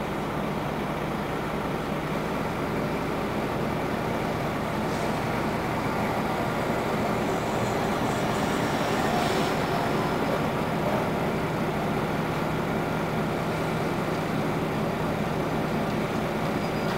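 Cabin noise of a Scania N94UA articulated city bus under way: a steady engine drone with road and tyre noise, heard from inside the passenger compartment.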